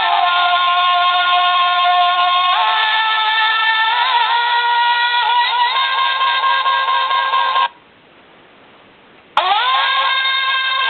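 An alarm clock's speaker playing a recorded sung melody of long held notes that slide in pitch. It breaks off about eight seconds in and comes back with a click after a short pause.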